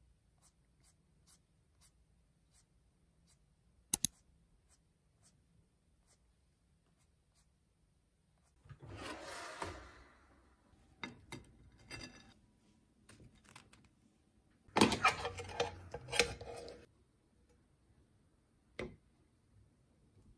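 Sparse kitchen handling noises: a sharp click about four seconds in, a short burst of scraping, a few light knocks, then a louder, longer burst of scraping and clatter.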